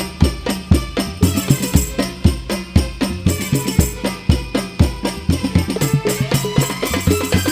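Al-Banjari hadrah ensemble of hand-struck frame drums (terbang/rebana) playing a fast, steady interlocking rhythm, deep bass strokes under sharp higher slaps.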